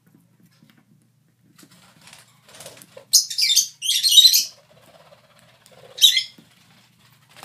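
A lovebird tearing at a paper wallpaper border with its beak: three short bursts of ripping, two close together about three seconds in and one about six seconds in, over faint scratching. This is how a hen lovebird strips paper for nesting material.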